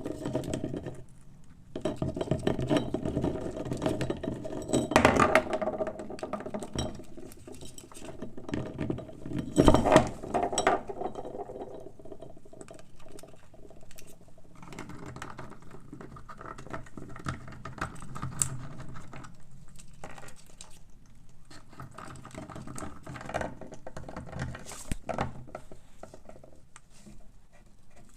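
A parrot's beak gnawing and cracking a walnut shell: rapid small clicks and scraping, with louder cracks about five and ten seconds in.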